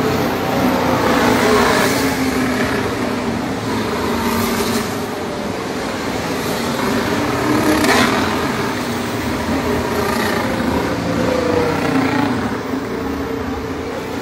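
Formula One cars' turbocharged V6 engines passing one after another on the slow lap after the race has finished, their engine notes sliding in pitch as they go by. One car passes loudest about eight seconds in.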